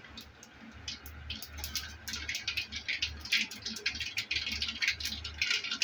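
Mustard seeds spluttering in hot oil in a kadai: rapid, irregular popping and crackling that starts about a second in and grows denser as the seeds heat.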